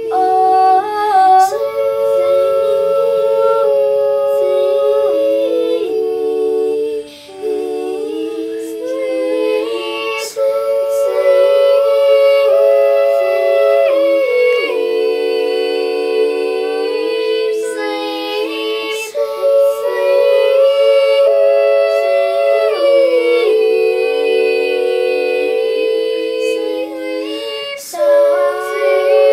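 A cappella vocal group singing held chords in close harmony, several voices moving together without instruments, partly hummed or sung on open vowels.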